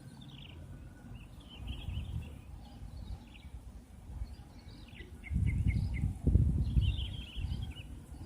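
Small birds chirping in short repeated calls over a low rumbling background noise that grows much louder about five seconds in.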